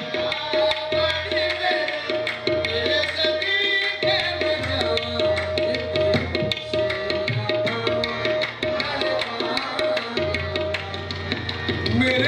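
Qawwali music without much singing: harmoniums playing a melody over a steady held note, with tabla and hand claps keeping a quick, even beat.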